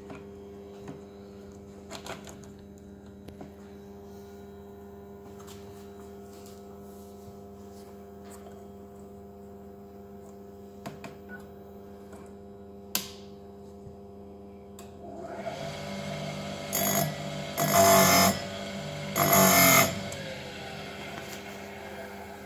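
Electric chainsaw-chain sharpening grinder running with a steady hum, with light clicks now and then. About fifteen seconds in the grinding wheel starts working a tooth, with three loud grinding passes near the end.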